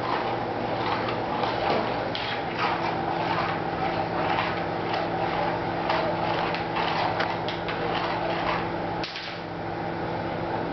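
A round, handled kitchen utensil swept and scraped back and forth across a wooden parquet floor: continuous rough scraping with many small clicks and knocks, easing off about nine seconds in.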